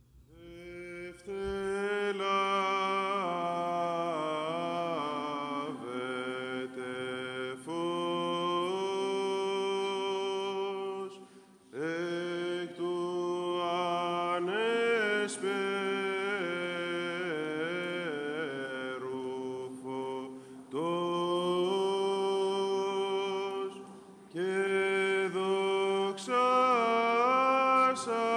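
Unaccompanied vocal chant: a winding melody over a steady held drone, sung in long phrases with short breaks about 11, 20 and 24 seconds in.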